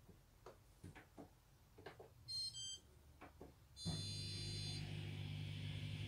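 Indesit dishwasher's programme dial clicking as it is turned, then a short electronic beep about two seconds in. Near four seconds a longer beep sounds and a low steady hum starts as the machine begins to run.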